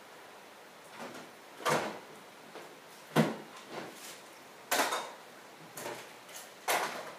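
A series of separate sharp knocks and clunks, four or five of them a second or so apart, as hard objects are handled and set down.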